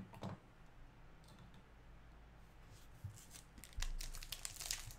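A trading card in a rigid plastic holder being handled and set down: faint scattered clicks and light rustles, busier in the last second and a half, over a low steady hum.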